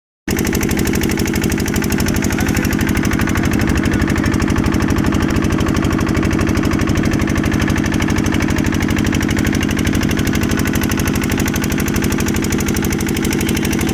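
Motorboat engine running steadily, a rapid, even chugging with most of its weight low in pitch.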